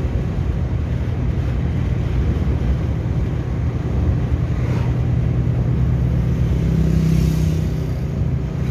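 Steady engine hum and road noise heard from inside a car's cabin while it drives along a highway at cruising speed.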